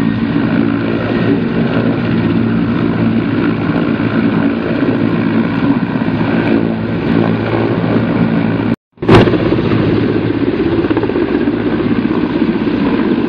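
Mil Mi-8-type twin-turbine helicopter running at full power with its main rotor turning as it lifts off the pad, a steady turbine whine over rotor noise. About nine seconds in, the sound cuts out for a moment and comes back with a sharp crackle.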